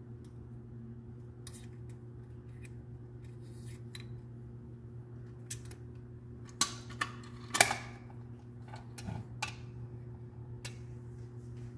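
Drill bit case being handled and its lid shut: a scatter of sharp clicks and knocks, the loudest clack a little past halfway. A steady low hum runs underneath.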